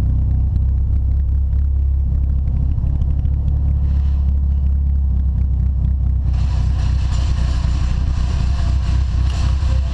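Car engine running at low speed with a steady low drone, heard from inside the cabin. From about six seconds in, a steady hiss joins it.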